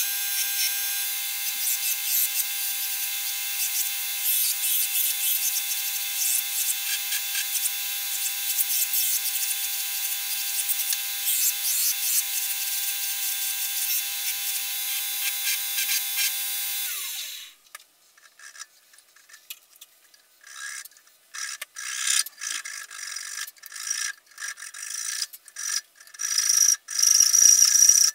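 A belt grinder runs steadily while a wooden hatchet handle is sanded against the belt, its motor hum holding under a rasping hiss. About 17 seconds in, the motor tone falls away and stops. Near the end come short hacksaw strokes cutting through the end of the wooden handle, growing steadier and louder.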